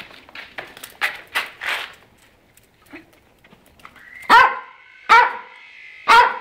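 Small black-and-tan dog barking sharply three times, about a second apart, in the second half, after some quieter short sounds.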